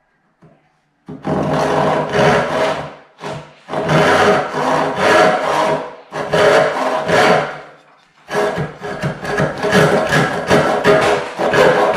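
Freshly sharpened crosscut panel saw (8 teeth per inch) cutting across a wooden board in fast back-and-forth strokes, its teeth rasping through the wood and its plate ringing faintly. The sawing starts about a second in and runs in three or four bursts with short pauses between them.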